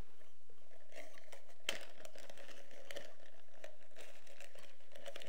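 Clear plastic packaging bag crinkling as hands rummage inside it to pull out a part, with one sharper crackle about a second and a half in.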